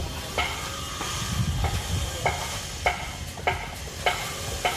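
Footsteps on the weathered wooden deck planks of an old wooden cargo boat: about eight evenly paced steps, a little under two a second, each a short sharp knock. A steady low rumble runs underneath.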